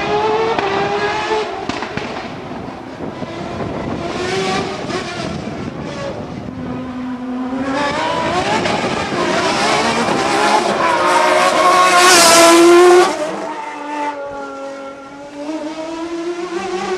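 Racing car engine at full throttle, rising in pitch through each gear and dropping back at the shifts as the car approaches, loudest about three-quarters through before falling away suddenly as it passes.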